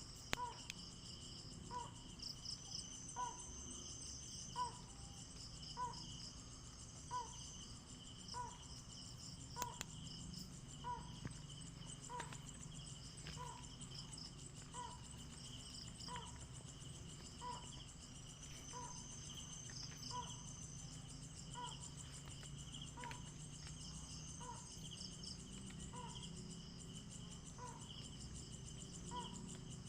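Crickets and other insects chirring steadily, with a short, low-pitched call from an unseen animal repeated evenly about once every second and a bit throughout.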